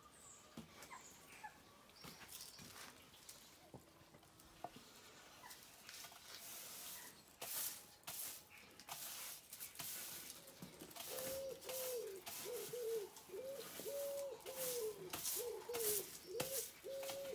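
Stiff-bristled push broom swept in short strokes over cobblestones and flagstones, the bristles scraping and the broom head knocking on the stones. From about halfway a low, pitched call repeats about twice a second over the sweeping.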